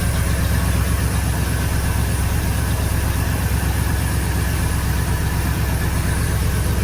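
1986 Oldsmobile Cutlass 442's 307 V8 idling steadily and quietly, its exhaust leak repaired.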